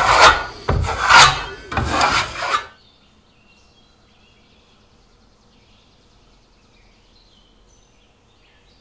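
Hand sander rubbing over jointing compound on plasterboard in about three strokes, which stop suddenly about two and a half seconds in. After that there are only faint bird chirps.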